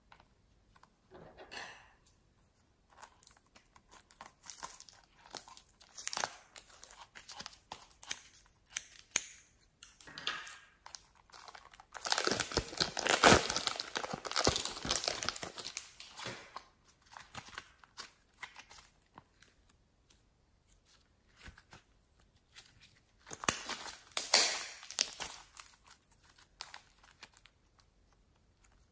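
Thin plastic piping bag crinkling and rustling as it is handled and peeled away from soft pink slime. The crackles come in irregular stretches, loudest about halfway through and again a few seconds before the end.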